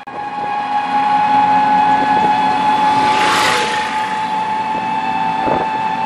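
Moving passenger vehicle heard from inside its open-sided cabin: a steady drivetrain whine at one pitch over road and wind noise. A rush of noise swells about halfway through, then eases.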